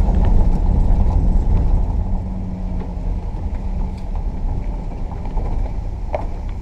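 Camper van driving along a forest road: steady engine and road rumble, easing off a little about two seconds in.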